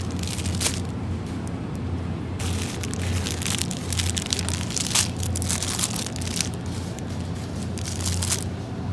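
Plastic food packaging crinkling and rustling in irregular bursts as bagged noodles are handled and dropped into a plastic shopping basket, over a steady low hum.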